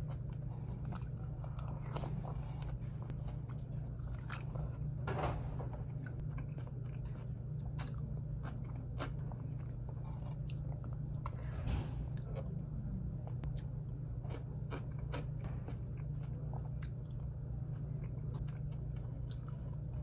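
Someone chewing and biting crunchy food close to the microphone, small crunches scattered irregularly throughout, over a steady low hum.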